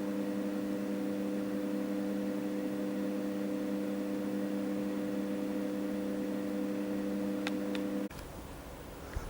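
Steady machine hum made of a few low, unchanging tones that cuts off abruptly about eight seconds in, with two faint ticks just before the cut.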